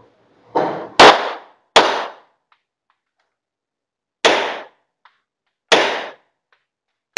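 Pistol shots, about six in all, each echoing briefly: three in quick succession in the first two seconds, then three more about a second and a half apart.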